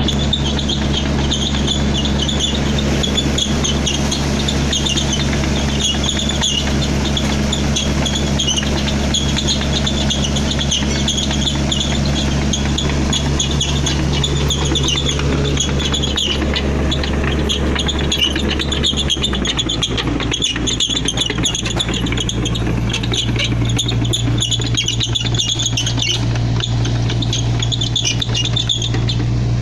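Sany SY55C mini excavator's Isuzu 4JG1 four-cylinder diesel engine running steadily, its note changing to a different pitch about 19 seconds in. A high, flickering chatter sits above the engine through much of it.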